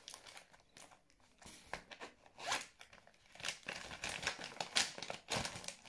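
Plastic pouch being handled: scattered short rustles and scrapes, a few seconds apart.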